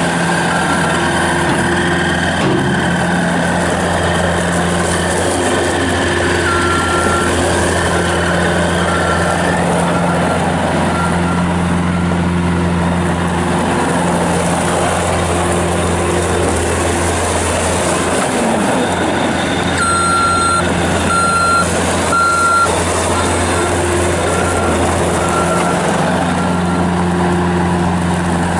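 Bobcat S205 skid steer's Kubota diesel engine running steadily while the machine is driven, with its backup alarm beeping in runs of short, evenly spaced beeps as it reverses, loudest about two-thirds of the way through.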